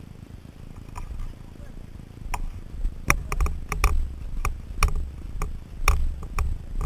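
A dirt bike jolting over a rough dirt trail. A low rumble sets in about two seconds in, with a dozen or so irregular sharp knocks and rattles from the bike and its mounted camera as it hits the bumps.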